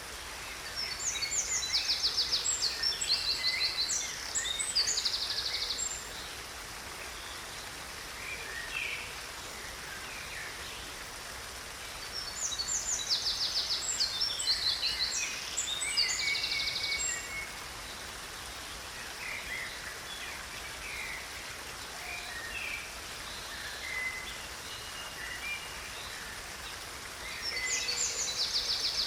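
Stream water running steadily, with a songbird singing a rapid, high song phrase twice about ten seconds apart and starting it again near the end.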